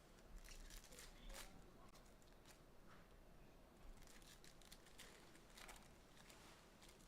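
Faint crinkling and rustling of trading-card pack wrappers and cards being handled, with scattered soft clicks.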